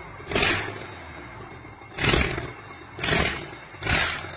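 Komatsu bulldozer diesel engine running with a low steady rumble, broken by four loud chuffs of rushing noise about a second apart. The engine is one that has broken down from overheating.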